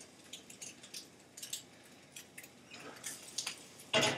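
Egg frying in a pan under melting cheese, with irregular small crackles and pops of the hot fat. Near the end there is one louder knock.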